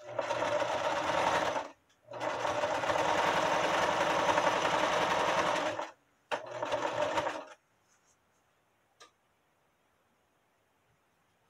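Electric sewing machine running a straight-stitch seam through layered terry towel in three runs: a short burst, a longer run of about four seconds, and another short burst, each stopping sharply. A faint click or two follows.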